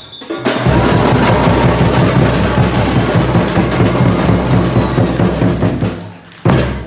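Samba school percussion section (bateria) playing a fast, dense samba rhythm with heavy bass drums. It comes in after a brief pause, stops about six seconds in, and ends with one loud hit.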